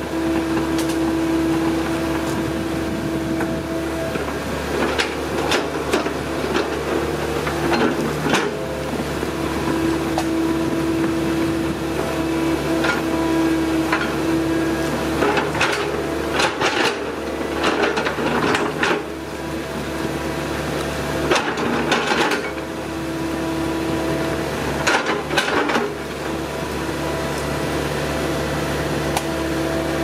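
Hydraulic excavator running steadily at work, its engine tone growing stronger for a few seconds at a time, three times, with scattered knocks and cracks throughout.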